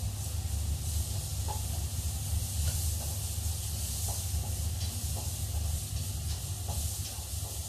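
Chicken sizzling in a frying pan on a gas hob as it is stirred, a steady hiss with a few light clicks of the utensil against the pan. A steady low hum runs underneath.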